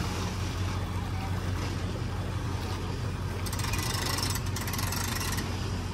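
An engine idling with a steady low hum, joined by a loud hissing rush from about three and a half to five and a half seconds in.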